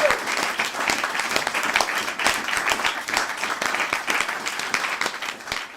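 A crowd applauding and cheering: dense clapping with a voice shouting briefly at the start, fading out near the end.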